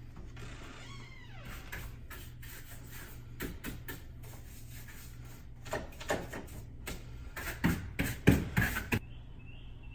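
Clicks and knocks of door-lock hardware being handled and fitted into a door, with a burst of louder knocks about eight seconds in.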